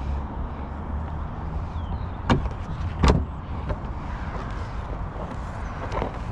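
Car door or trunk mechanism clunking: two sharp clunks about a second apart and a fainter one near the end, over a steady low rumble.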